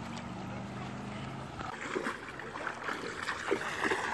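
Water splashing and sloshing as a small child wades through shallow lake water, irregular and choppy from a couple of seconds in. Before that, a low steady hum.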